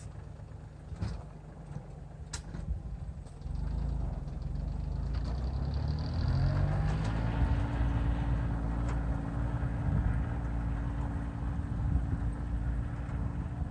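Kioti CK2610 compact diesel tractor running with its rear three-point snowblower: the engine revs up about four seconds in, its pitch climbing, then holds a steady drone. Two sharp clicks sound in the first few seconds.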